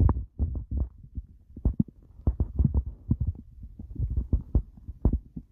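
Stomach growling, recorded close up: a rapid, irregular run of short low gurgles and pops with no steady rhythm.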